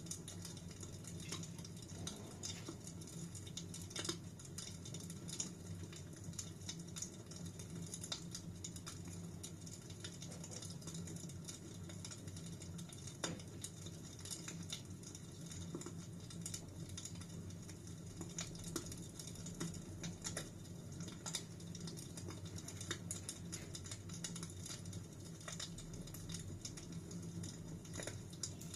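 Wood fire crackling, with frequent irregular sharp pops and snaps over a steady low hum.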